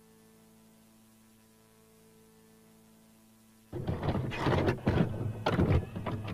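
Faint steady electrical hum, then about three and a half seconds in a loud, irregular run of clunks and rattles from a VCR's tape mechanism switching from stop to play.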